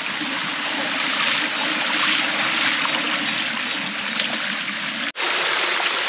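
Mountain stream rushing steadily over rocks, a loud, even wash of water with a momentary break about five seconds in.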